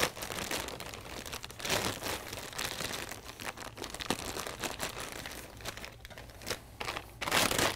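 Clear plastic bag crinkling and rustling irregularly as it is pulled off a flat TV pedestal piece, louder near the end.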